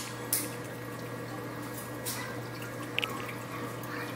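Reef aquarium's water circulation running: a steady low pump hum under a constant trickle of water, with two short splashes or drips at the surface, about two seconds apart, and a small bubbly plip near the end.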